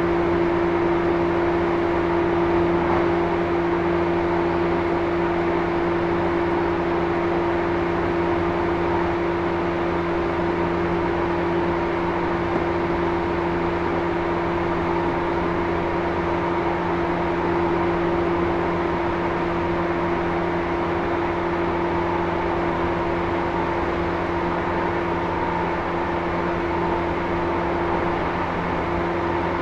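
E235-1000 series electric train running at a steady speed between stations, heard inside a motor car: a steady whine from the Mitsubishi full-SiC VVVF inverter and MT79 traction motors over wheel and rail rumble. The whine holds a constant pitch, so the train is neither speeding up nor slowing down.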